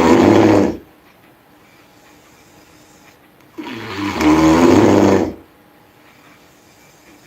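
A sleeping person snoring loudly with a low, buzzing rattle. One snore tails off just after the start, a second comes in the middle, and each is under two seconds long, with quiet pauses between breaths.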